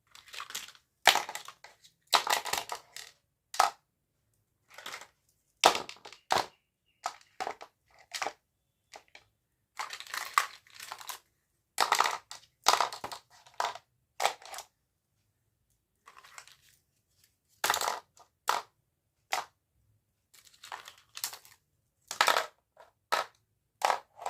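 Toy packaging being handled and opened: irregular bursts of crinkling and crushing, each up to about a second long, with dead silence between them.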